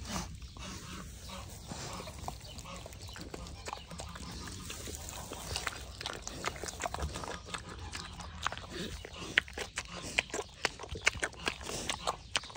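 Elderly pig chewing banana with its mouth open: a quick, irregular run of wet smacking clicks, growing denser and louder in the second half.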